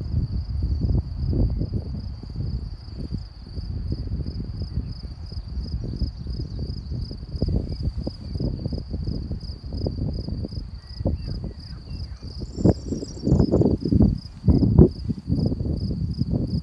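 Wind buffeting the microphone in irregular gusts, strongest about two-thirds of the way through. Under it, grassland insects keep up a steady, high-pitched, pulsing trill.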